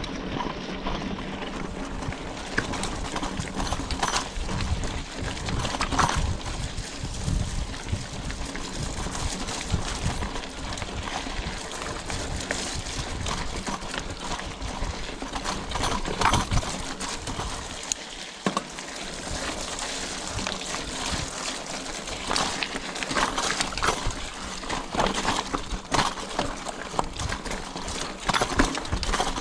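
Scott Spark 960 full-suspension mountain bike ridden over a rocky, leaf-covered dirt trail: tyres crunching over stones and leaves, with irregular knocks and clatters from the bike as it hits rocks, over a steady low rumble.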